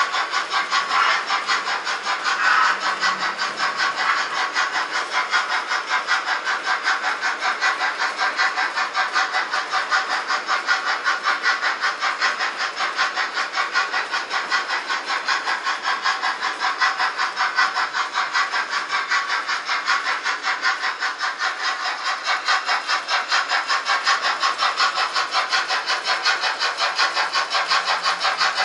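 Trix Express H0 model freight train running on metal track: a steady, rapid, evenly spaced clatter from its many wagons' wheels.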